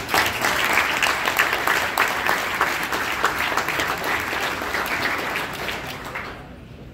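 Audience applauding a winner, the clapping dying away near the end.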